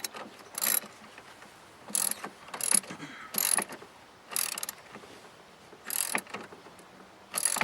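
Socket ratchet clicking in short bursts as it is swung back between strokes, tightening the clamp nut on a car battery's positive terminal. About seven bursts come at uneven intervals.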